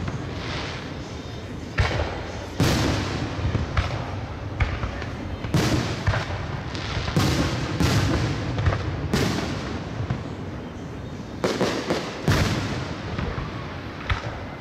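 Aerial fireworks shells bursting one after another, about a dozen sharp booms, each trailing off in a long rumbling echo.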